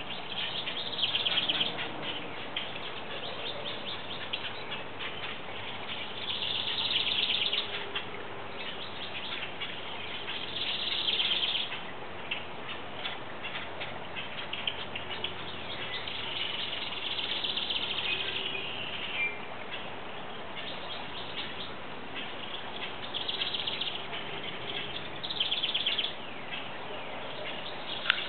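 Birds singing: high, fast-trilled phrases about a second long, repeating every few seconds over steady background noise.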